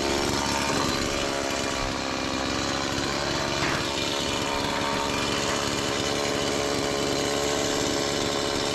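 Chainsaw engine running steadily at an even pitch.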